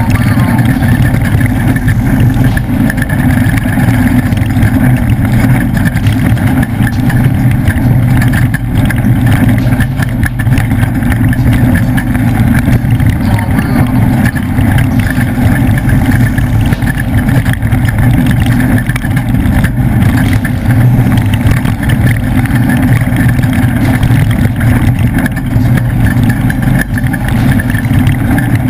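Engine of a leaf-sprung Ford off-road race truck running hard at fairly steady revs, heard from onboard, a loud continuous drone mixed with driving noise.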